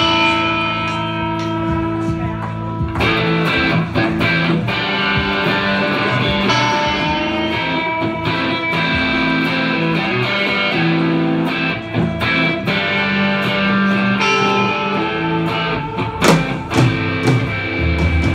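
Live rock band playing an instrumental intro: electric guitars ringing out sustained chords, with drum hits coming in about three seconds in.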